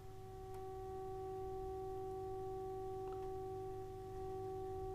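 Steady test tone from the signal generator, heard through the UNIC Royal valve radio's loudspeaker as the long-wave coil slug is wound in and the set tunes onto the generator's signal. The tone swells about half a second in and dips briefly about four seconds in.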